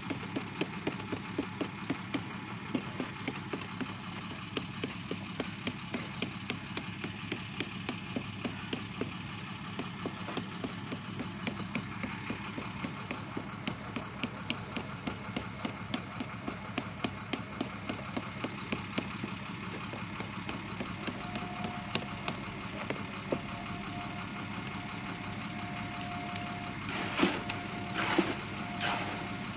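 Mallet tapping the sides of steel concrete cylinder moulds in quick, even knocks, about three a second, to settle the freshly placed concrete and drive out trapped air, over a steady engine-like drone. The tapping thins out about two-thirds of the way through, and a few louder knocks come near the end.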